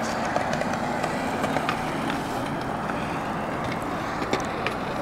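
Skateboard wheels rolling over concrete: a steady rumble with scattered small clicks.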